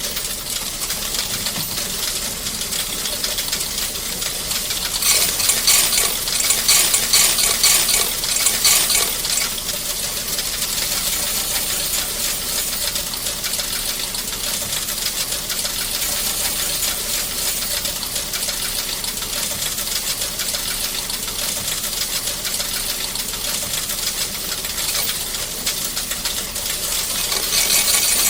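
Coin-counting machine running at full speed, a dense, continuous metallic clatter of coins being fed and sorted. It gets louder and brighter about five seconds in for a few seconds, and again near the end.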